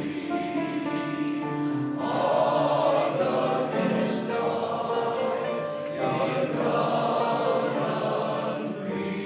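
Male voice choir singing in several parts, holding long sustained chords that change about two seconds and six seconds in.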